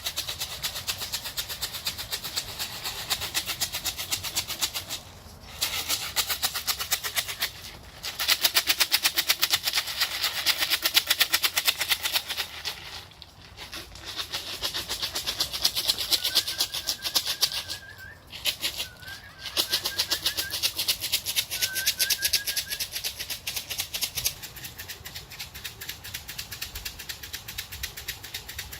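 Pigeon feed being shaken in a plastic box: a rapid, continuous rattle of grain in long bouts with several brief pauses. It is the feeding call that tells the young racing homers it is time to come into the loft.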